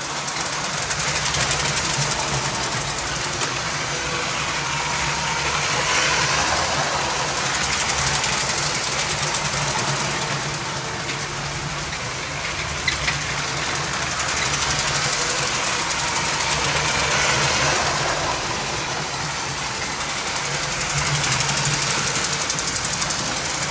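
LEGO electric toy trains, among them a 12-volt steam engine with tender, running on plastic track: a steady whirring of small train motors with rapid clicking of the wheels. The sound swells and fades as the trains pass close by.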